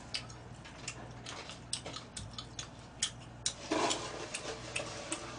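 A person eating with chopsticks from plastic food containers: scattered sharp clicks and smacks at irregular moments, with a short louder noisy patch a little before four seconds in, over a low steady hum.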